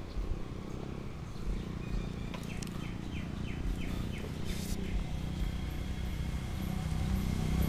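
A bird calling a quick run of about six short, falling notes a few seconds in, over a steady low rumble.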